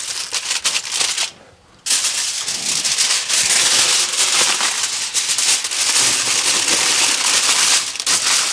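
Aluminium foil crinkling and crackling as hands fold and crimp it around a rack of spare ribs. It stops briefly just over a second in, then crinkles on without a break as a fresh sheet is handled.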